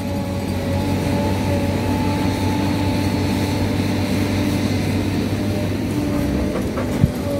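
SANY hydraulic excavator working: its diesel engine runs steadily under load with several steady whining tones over the low drone, and one sharp knock near the end.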